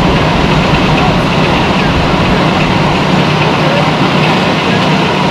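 Strong wind rushing over the microphone, loud and steady, over a steady low engine hum from fire apparatus running at the scene.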